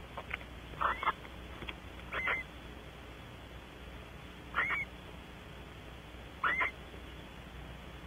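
Barn owl giving four short calls, each rising and then bending over, spaced about two seconds apart.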